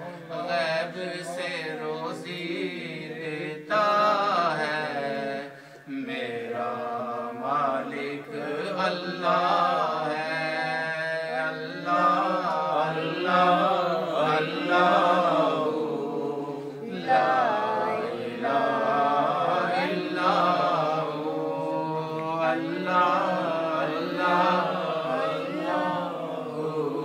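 A man's voice chanting a naat, a devotional poem in praise of the Prophet, into a microphone without instruments. The voice rises and falls in long melodic lines, with a brief pause about six seconds in.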